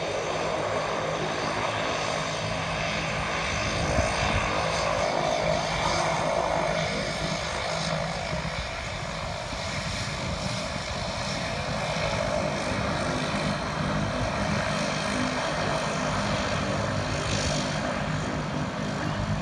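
Four-engine Airbus A340's jet engines running at taxi power as the airliner taxies and turns: a steady whine over a rumble.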